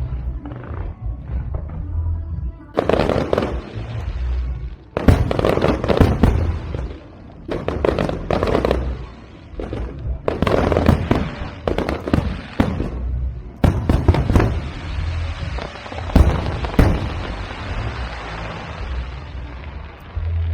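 Aerial firework shells bursting one after another, each sharp bang followed by dense crackling. Near the end the bursts run together into a long spell of crackle.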